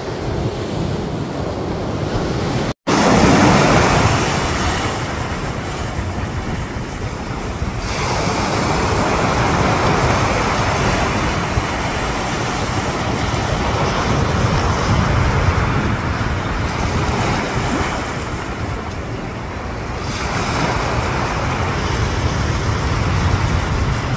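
Atlantic surf washing up on a sandy beach, a steady rush that swells and fades as waves come in, with wind rumbling on the microphone.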